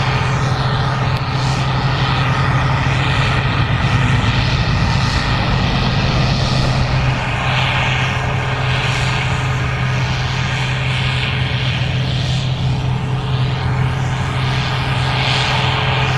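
Gleaner R65 combine harvesting corn: a steady, unchanging engine and machinery drone with a strong low hum.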